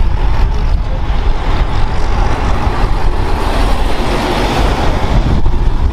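Car-transporter truck driving past on a road: steady engine and tyre noise with a heavy low rumble.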